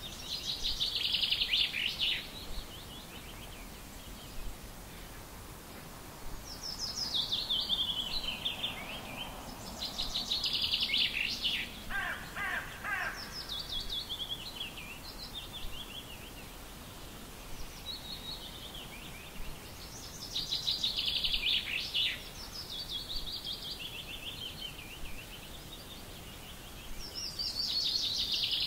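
A songbird singing: short, fast trilled phrases that drop in pitch, repeated every few seconds over a steady background hiss.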